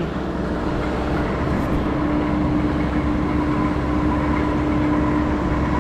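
A farm vehicle's engine running steadily, with a steady humming tone over it.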